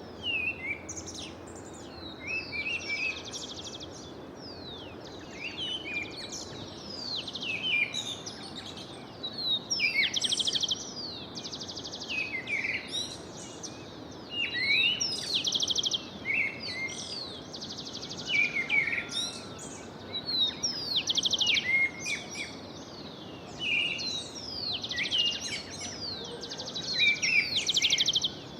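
Songbirds singing in a morning chorus: overlapping phrases of fast trills and down-sweeping whistled notes every few seconds, over a steady background hiss.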